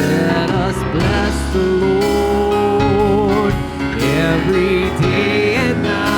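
Church worship band playing a gospel song, with wavering, gliding melody lines over sustained low notes.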